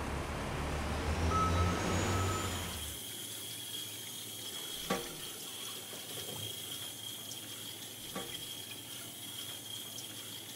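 Street traffic rumble for the first three seconds, then a kitchen tap running into a stainless steel sink as a hand rinses under the stream. Two light knocks sound in the sink, about two and five seconds into the running water.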